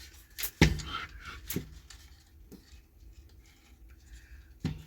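A few sharp knocks and clicks from an old cuckoo clock being handled while it is hung back on the wall. The loudest comes about half a second in, another about a second later, and a last one near the end.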